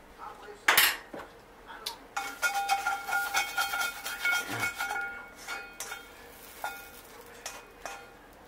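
Spatula scraping and knocking fried rice out of a wok onto a plate: a sharp clank about a second in, then a few seconds of scraping with the wok ringing, then scattered light taps.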